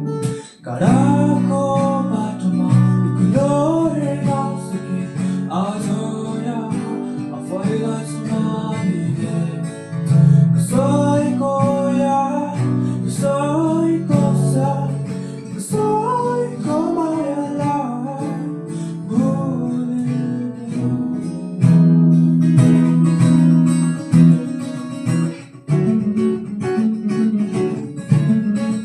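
Acoustic guitar strummed and picked, with a sung melody over it through much of the first half.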